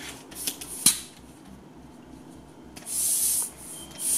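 Air hissing in two short bursts about a second apart at the valve of a body bucket's inflatable air pockets, as their air is adjusted. A few clicks come before, the sharpest about a second in.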